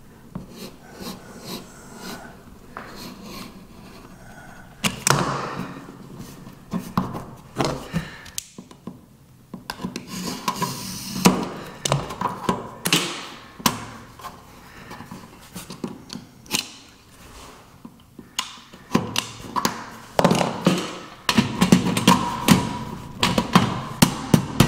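Utility knife cutting through vinyl plank flooring, with a string of sharp clicks, knocks and scrapes as the cut pieces are worked free and handled. A metal floor vent register is laid down on the vinyl near the end.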